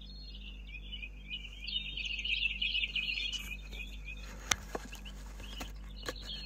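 Small birds twittering steadily, with a few sharp clicks a little past the middle.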